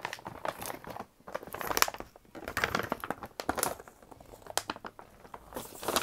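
A bag rustling and crinkling as it is handled and put aside, on and off in uneven spells.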